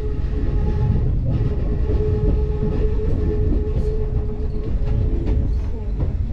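Hakone Tozan Railway electric train running, heard from inside the passenger car: a steady low rumble of wheels on rail with a steady hum that fades out about five and a half seconds in, and scattered light clicks.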